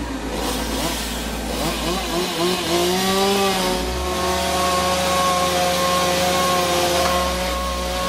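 Chainsaw revving up and down in short bursts, then rising and held at high speed in a steady whine from about three seconds in as it cuts through the standing trunk, with a low engine drone underneath.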